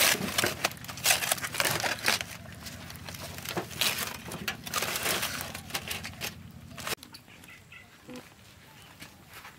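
Charred aluminium foil crinkling and tearing as it is peeled open by hand, in irregular crackles. It stops abruptly about seven seconds in.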